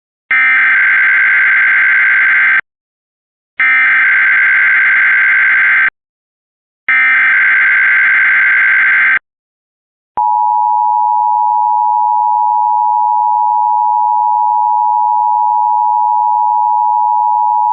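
NOAA Weather Radio alert for a test tornado warning. Three identical harsh digital data bursts, the SAME header, each about two seconds long with short gaps between them. About ten seconds in comes the long, steady warning alarm tone.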